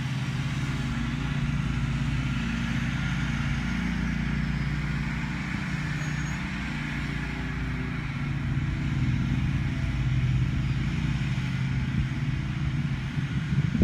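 Lawn mower's small petrol engine running steadily, a low, even engine hum that gets a little louder about ten seconds in.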